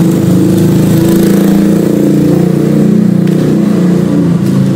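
An engine running steadily at an even speed, with a low, wavering drone.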